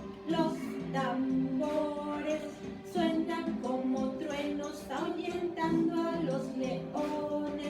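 A song playing: singing voices, choir-like, over backing music, with the sung notes changing about every half second to a second.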